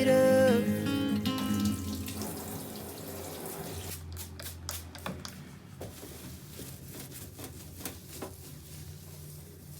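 A tap running water into a kitchen sink, with a few sharp clicks and knocks about halfway through. At the start, the last sustained notes of a pop song fade out.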